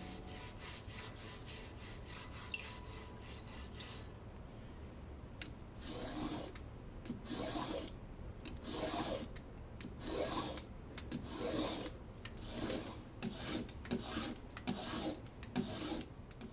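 A stiff brush scrubbing a burdock root in quick scratchy strokes. From about six seconds in, a vegetable peeler shaves long strips off the root, about one scraping stroke a second.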